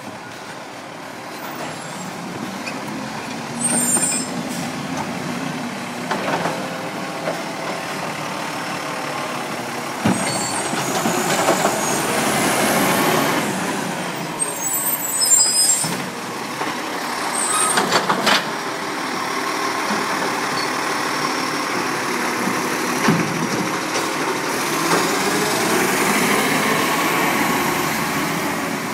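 Side-loader recycling garbage truck at work: its diesel engine running with revs rising and falling, several short sharp hisses of released air, and the engine revving up near the end as the truck pulls away.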